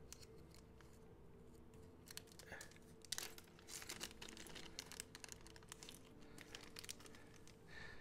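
Thin clear plastic zip bag crinkling faintly as it is handled and opened, in scattered crackles that are thickest around three to five seconds in.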